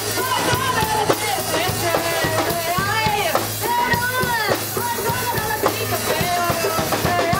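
Live acoustic rock band playing: a voice singing a melody over the band, with steady drum or percussion hits.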